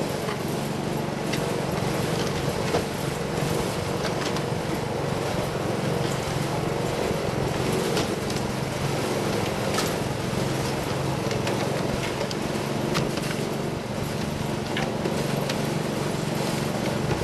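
A steady engine drone, with a few sharp knocks or clicks now and then.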